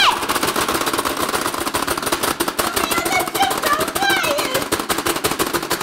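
Pie Face Showdown plastic game buttons being hammered as fast as possible, a rapid, unbroken stream of clicks as the pie arm ratchets toward one player.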